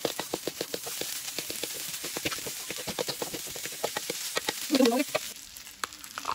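Wooden spatula stirring and scraping fried rice in a steel wok: rapid clacks against the metal, several a second, over a steady sizzle. The stirring stops about five seconds in, just after a brief pitched sound, the loudest thing here.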